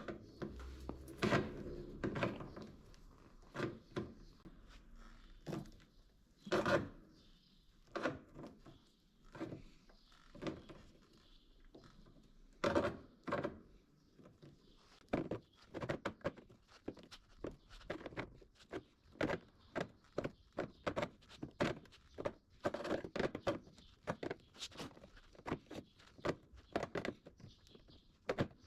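Irregular sharp knocks and clicks of metalwork on a steel patch panel in a car's rear body, some single and loud, others in quick clusters.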